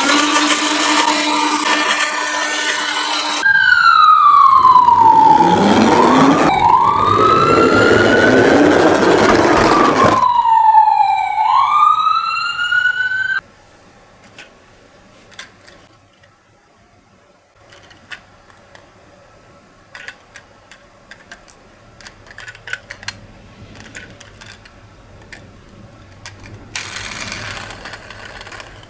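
Toy ambulance's electronic siren: a steady tone for about three seconds, then a loud wail sweeping down and up in pitch, which cuts off suddenly about 13 seconds in. After that there are only faint clicks and a short burst of noise near the end.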